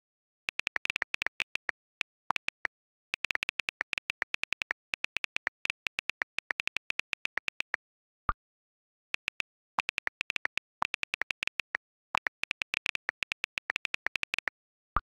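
iPhone on-screen keyboard clicks from fast typing, in quick runs with short pauses. About eight seconds in, and again near the end, a single different short click as each WhatsApp message is sent.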